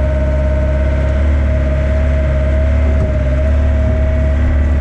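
Mini excavator's diesel engine running steadily under load, with a steady whine over a deep rumble, as the bucket digs and curls up a load of soil.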